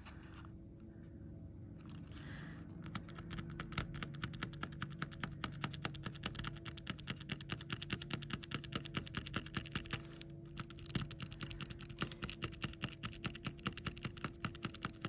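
Ballpoint pen drawn in quick short strokes over metal craft tape against a card edge, pressing in border lines: a rapid run of ticking strokes, several a second, with a short pause about ten seconds in. A faint steady hum lies underneath.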